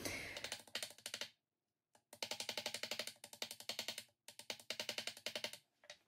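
Rapid, light, evenly spaced taps, about ten a second, in three runs separated by short gaps, ending suddenly.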